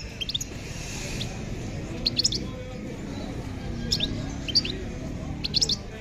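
Caged songbirds chirping in short, high clusters of notes every second or two, over a steady low background murmur.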